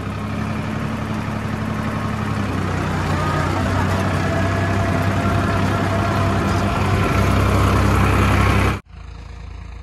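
Farmtrac 60 Super Max tractor's diesel engine running steadily under load while pulling a laser land leveller through wet soil, growing slowly louder. Near the end the sound drops suddenly to a much quieter engine hum.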